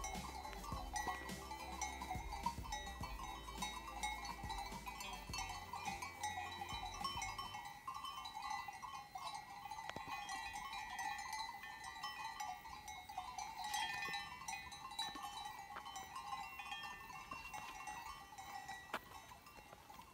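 Faint, continuous tinkling of many small bells worn by grazing livestock.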